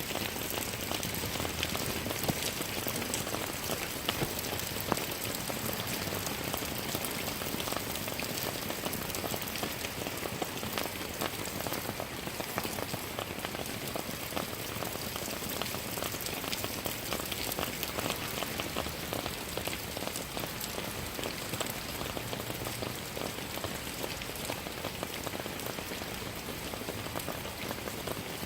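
Steady rain falling, a dense patter of raindrops hitting surfaces with many small individual drips.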